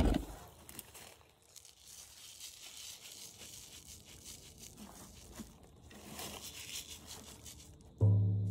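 Rustling and handling noise. Near the end a hand drum is struck once with a padded beater, giving a low, pitched boom that rings on and slowly fades.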